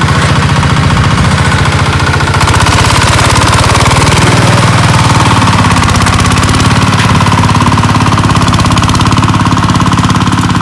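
DTZ 160 mini tractor's 15 hp single-cylinder diesel running under load, driving a 1.2 m rotary tiller through dry, hard ground, with a rapid, even firing beat. The engine gets louder about two seconds in as the tiller digs in.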